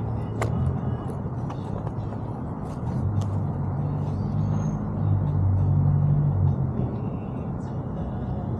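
Kawasaki Vulcan S 650's parallel-twin engine running under way, with wind and road rush. The engine note rises and falls a few times and grows louder about five seconds in.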